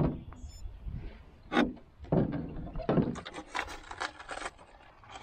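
Knocks and scraping on a canoe, Northstar solo canoe: a sharp knock at the start and three more over the next three seconds, then a rasping scrape for about a second and a half, on a shallow river where the canoe has just bottomed out.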